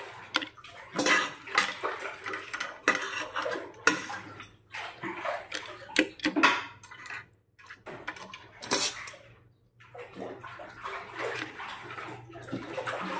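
A utensil scraping and clinking against a plate in the thick, wet coconut-milk stew of snails and taro, in irregular spurts with short pauses.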